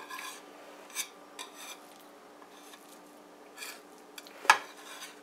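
Knife blade scraping around the inside wall of a metal fluted tube pan, loosening a cooled chocolate flan cake: a series of short, scattered metallic scrapes, with one sharper clack about four and a half seconds in.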